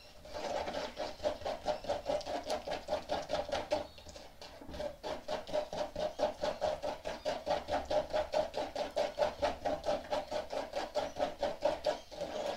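A stirring stick scraping and stirring through wet cement mix in a silicone mixing bowl, in quick even strokes of about five a second, with a short pause about four seconds in.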